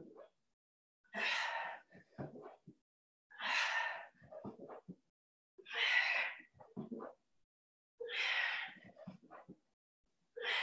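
A person breathing hard from exertion during a workout: a loud, forceful breath about every two seconds, five times, each followed by a few short, softer sounds.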